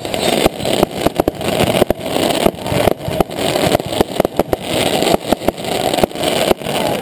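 Fireworks going off in a busy barrage: many sharp bangs and cracks in quick, irregular succession over a continuous rushing, crackling noise.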